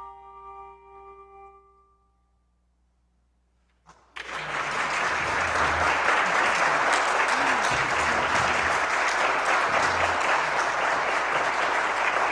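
A final bell chord ringing out and fading over about two seconds, then a short silence, then a congregation applauding steadily from about four seconds in.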